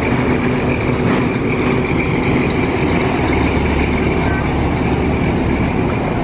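A heavy vehicle's engine running steadily, with a constant wash of noise and a few held tones over it.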